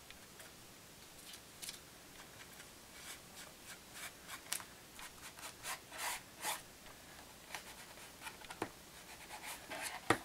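Foam brush dabbing and rubbing paint into the creases of a hardback book cover: faint, irregular scratchy strokes, with a sharp tap near the end.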